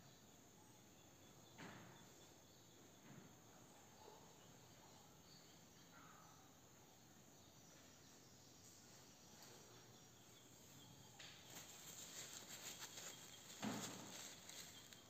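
Mostly near silence with a few faint handling ticks; from about eleven seconds in, a paper towel rustles and crinkles as it wipes excess epoxy off the rod joint, with a soft bump near the end.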